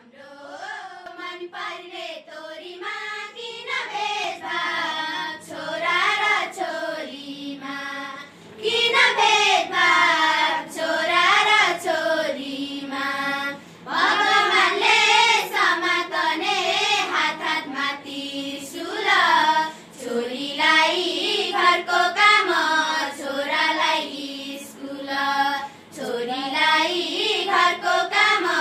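Young female voices singing a song, with a steady low tone held beneath; the singing gets louder about eight seconds in.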